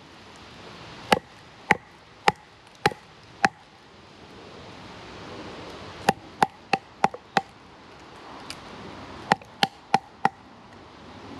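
Chopping into a log with a blade: sharp, ringing strikes in three runs of four or five blows, about two to three a second.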